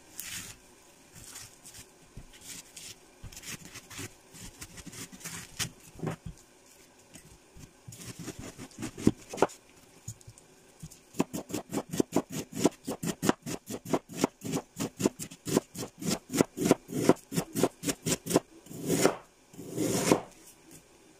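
Kitchen knife cutting through a frozen head of white cabbage on a plastic cutting board: a few separate cuts at first, then a fast, even run of chopping strokes, about four or five a second, from around the middle. Near the end come two longer scraping sounds.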